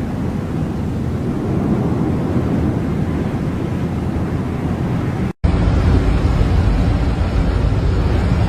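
Storm wind buffeting the microphone over rough sea noise aboard a ship, a steady low rumble. About five seconds in it cuts out for a moment, then a louder, deeper rumble resumes.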